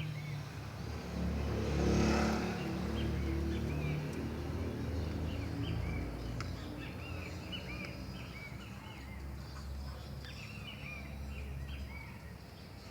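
A motor vehicle's engine running with a low rumble, loudest about two seconds in and then easing off, while small birds chirp repeatedly throughout; a single sharp click about six and a half seconds in.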